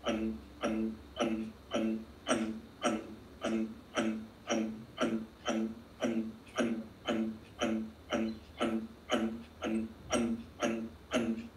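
Kapalabhati breathing: short, forceful exhalations pumped out through the nose in a steady rhythm, about two a second.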